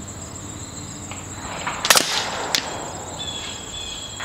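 A .25-calibre PCP air rifle fires one slug, a sharp crack about two seconds in, followed about half a second later by a shorter, fainter crack of the slug striking downrange. Insects buzz steadily throughout.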